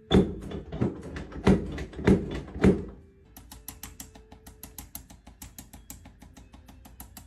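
Five heavy thumps about half a second apart during a chiropractic adjustment on a treatment table. From about three seconds in, a fast, even run of light clicks follows, several a second.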